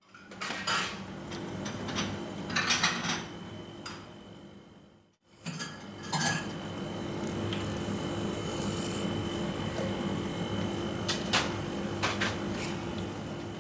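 Kitchen clatter: a knife and utensils clink and knock against a plastic cutting board and stainless-steel counter, with scattered sharp clicks over a steady hum of kitchen equipment. The sound breaks off briefly about five seconds in.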